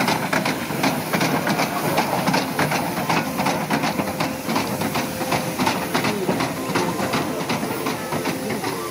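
Vertical-boilered 'Coffee Pot' steam locomotive on the move, its exhaust chuffing in a quick, even beat over a steady hiss of steam.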